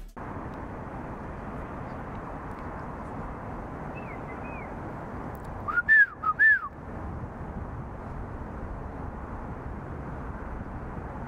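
Human whistles used as a recognition signal between urban climbers, a Storror-style call. Two faint short whistles come about four seconds in, then three louder rising-and-falling whistled notes around six seconds in, over a steady low hiss.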